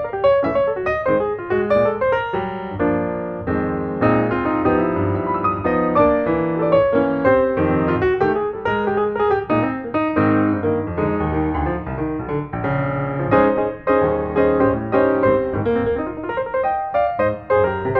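Background music played on piano: a busy run of notes with a steady pulse.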